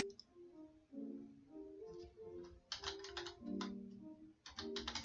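Soft background music with a slow melody of held low notes, over which a computer keyboard is typed in two short bursts, about three seconds in and again near the end, as a password is entered. A single sharp click at the very start.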